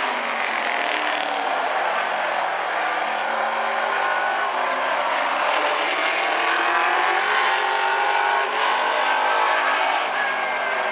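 A pack of street stock race cars running at racing speed, several engines heard at once, their pitches rising and falling as the cars circle the oval.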